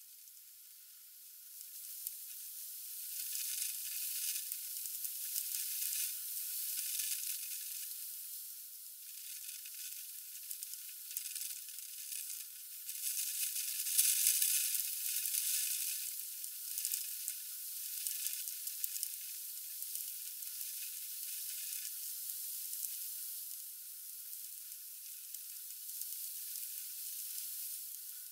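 Heavy rain on a window, sped up tenfold with the timelapse so that it comes out as a high, steady hiss. It swells to its loudest about halfway through, as the downpour is heaviest, then eases off.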